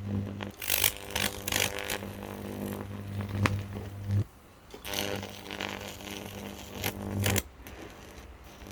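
Microwave oven transformer humming loudly under load, with crackling as the air conditioner circuit board it is powering burns. The hum cuts off about four seconds in, comes back half a second later, and cuts off again about seven and a half seconds in.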